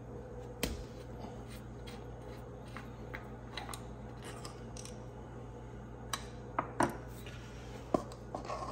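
Light clicks and scraping of hand work at an ATV's oil fill: the fill cap with its dipstick is unscrewed from the engine case and a plastic funnel is set into the fill hole, with a few sharper clicks near the end. A steady low hum runs underneath.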